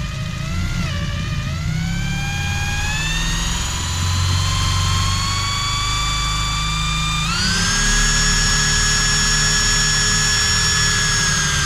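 Corded electric drill boring a 3/8-inch hole through wood toward sheet metal on the other side. The motor's whine sags under load at first, climbs slowly, then jumps higher about seven seconds in and holds, as the bit comes through.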